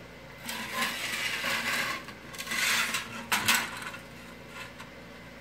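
Sheet-metal pieces and a steel square sliding and scraping across a metal workbench top in two stretches, then a few sharp metallic clinks about three and a half seconds in.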